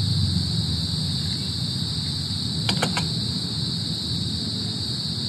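Three quick metallic clicks close together, nearly three seconds in, as a metal pot stand is set onto a brass alcohol stove, over a steady high chorus of crickets and a steady low rumble.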